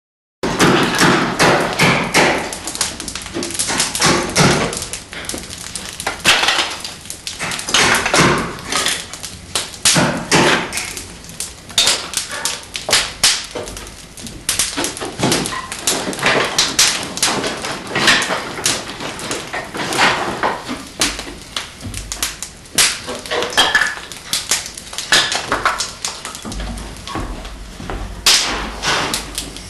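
Wood fire of kindling and split logs crackling in an open brick fireplace: a steady run of rapid, irregular pops and snaps.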